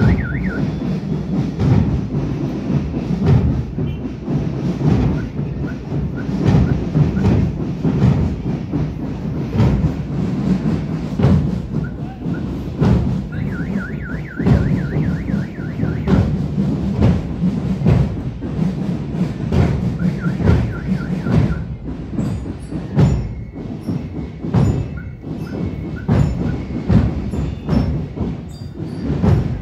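Drum-and-bugle marching band (banda de guerra) playing, with drums beating throughout. Short runs of high repeated notes come in about halfway through and again a little later.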